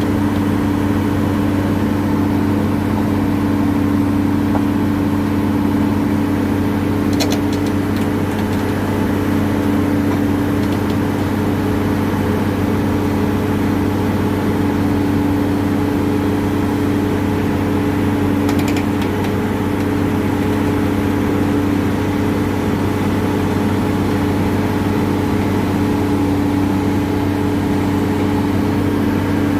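Heavy machine running steadily at constant speed, an even low drone, with a faint tick about seven seconds in and another at about nineteen seconds.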